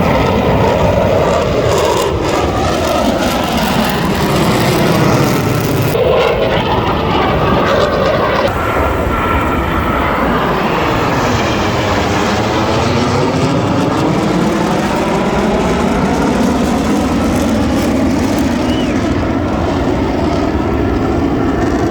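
Blue Angels F/A-18 Super Hornet jets flying past: loud, steady jet-engine noise whose tone sweeps down and back up around halfway through as the aircraft go by.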